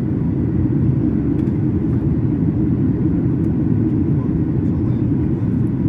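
Steady low rumble of a Boeing 737 MAX 8's CFM LEAP-1B engines and airflow heard from inside the passenger cabin, with no change in pitch or level.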